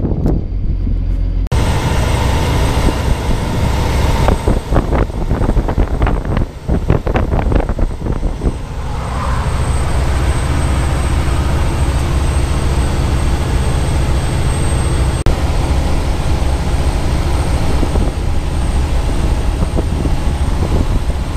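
Heavy diesel engine running steadily, a low drone under a broad noisy haze. Between about four and eight seconds in there are several sharp knocks.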